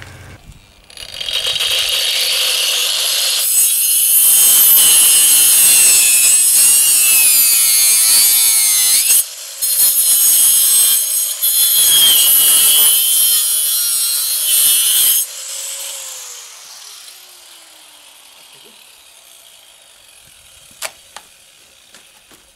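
Angle grinder with a cutting disc spinning up about a second in and cutting through the bone of a beef head: a loud, high grinding with two brief dips. About fifteen seconds in it is switched off and spins down, falling in pitch. A single sharp click near the end.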